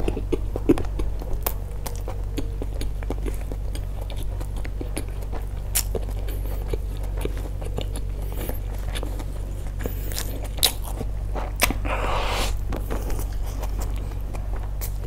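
Close-miked chewing of a mouthful of schezwan fried rice eaten by hand, with many short wet mouth clicks and smacks. A steady low hum runs underneath.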